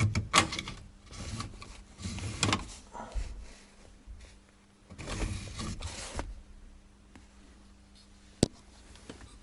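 3D-printed plastic holder being pushed and slid into the ashtray opening of a car dashboard: a few short bursts of plastic scraping and rubbing, then a single sharp click over a second before the end.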